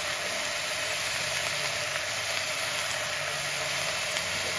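Mutton pieces and small onions sizzling steadily in hot oil in a pressure cooker, the spices freshly added on top.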